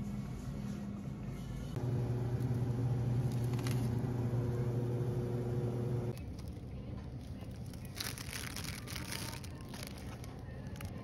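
Supermarket ambience: a steady low hum of refrigerated display cases and ventilation, louder for a few seconds in the middle. Over the last few seconds, plastic packaging crinkles as it is handled.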